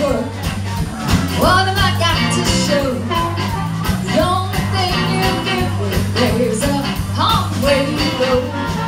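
Live electric blues band playing an instrumental intro: an amplified harmonica plays bending, sliding phrases over a walking electric bass line, drums and electric guitar.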